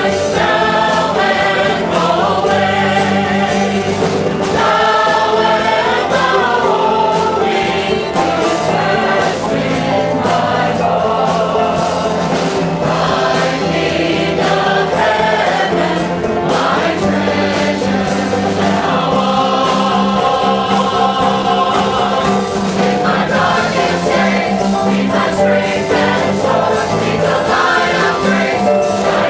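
A mixed choir of men and women singing a gospel hymn in harmony, with instrumental accompaniment.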